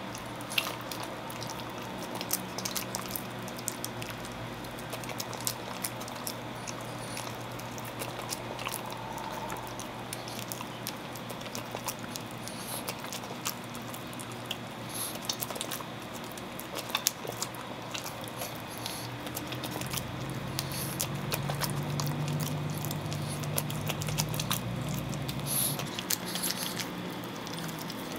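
A pug eating a banana from a hand: wet chewing, licking and lip-smacking, many short sharp smacks and clicks. A low hum swells in the last third.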